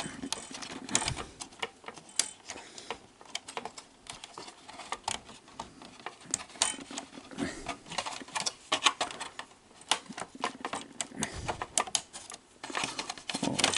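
Irregular small clicks and rattles of hands and a tool working at a plastic zip tie and parts on the underside of a VCR mechanism.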